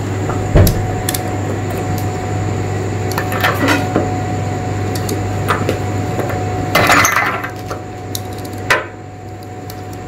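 Hand blender with a whisk attachment running steadily in a bowl, whipping instant coffee, sugar and hot water into a thick dalgona foam. The beater knocks and scrapes against the bowl now and then, loudest about half a second in and again about seven seconds in.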